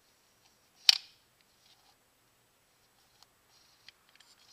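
A single sharp click about a second in, then scattered faint small clicks and rustles, from a GM 5.3L Vortec electronic throttle body being handled and worked by hand.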